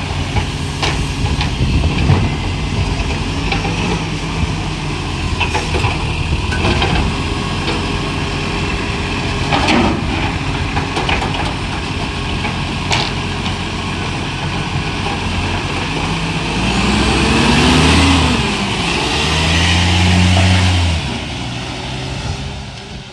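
Euro 6 garbage truck's diesel engine running with an exhaust leak, with scattered knocks and clanks. About two-thirds of the way through the engine revs up, its pitch rising and holding, then drops back shortly before the end.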